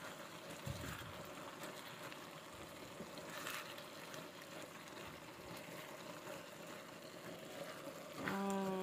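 Faint sizzling and simmering of macaroni in tomato sauce in a frying pan while it is stirred with a spatula. Near the end a short hummed voice sounds briefly.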